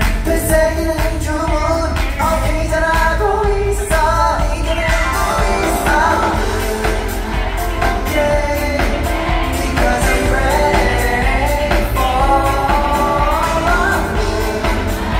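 Live K-pop dance-pop concert performance: a male voice sings over a loud backing track with heavy, steady bass.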